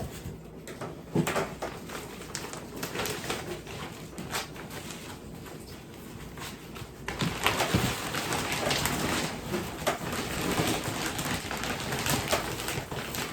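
Plastic bag of soil being handled and emptied into a raised garden bed: crinkling plastic and small knocks, then a sudden, louder, steady rush of dry soil pouring and crackling starting about seven seconds in.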